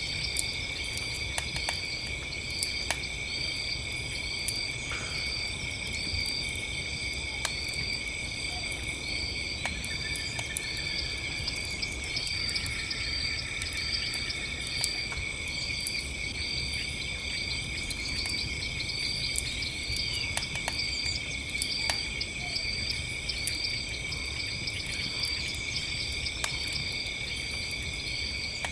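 Campfire crackling, with scattered sharp pops over a low steady rumble, set against a chorus of crickets: a steady high trill and a cricket chirping a little more than once a second.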